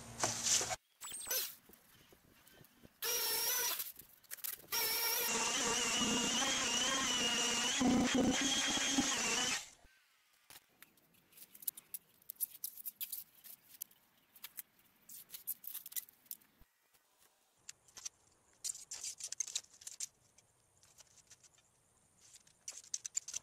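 A power sander running in two bursts, a short one and then one of about five seconds, with a wavering high whine; it stops sharply. After that comes faint, intermittent scratching of a knife cutting insulation foam board along a straightedge.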